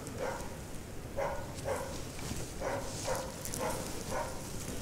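A Laika hunting dog barking in a run of short, separate barks, about seven of them, half a second to a second apart. It is bay barking on a moose, holding it so the hunters can close in.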